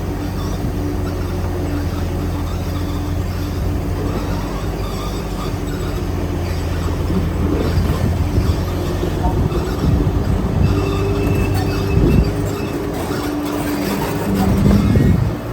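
Diesel engine of heavy earthmoving machinery running steadily, with metal squealing and clanking over it. The engine pitch swings up and down twice in the second half.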